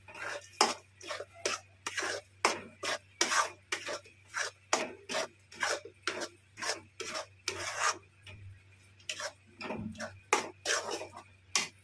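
Metal spatula scraping and stirring a thick khoya and dry-fruit mixture around a metal kadhai, about two or three strokes a second. The strokes pause briefly about eight seconds in, then start again.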